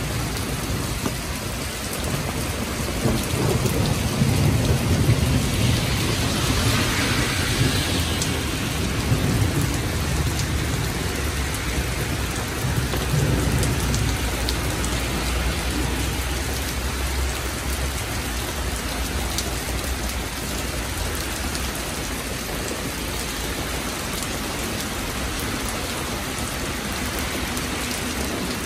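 Heavy rain pouring steadily onto a street and pavement, with a long low rumble of thunder through the first half that dies away.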